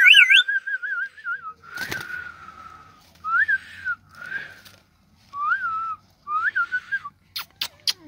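Male rose-ringed parakeet whistling. A warbling whistle in the first second and a half is followed by five short whistles, each rising and then falling in pitch, with a click near two seconds and a few sharp clicks near the end.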